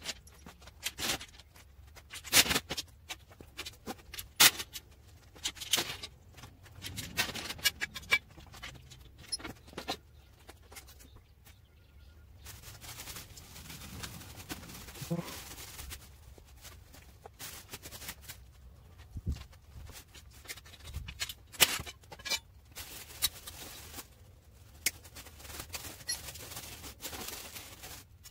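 Scattered sharp knocks and clicks of a steel shipping crate being unbolted and handled, for about the first twelve seconds. After that, quieter rustling and crinkling of clear plastic wrap being pulled off the minibike.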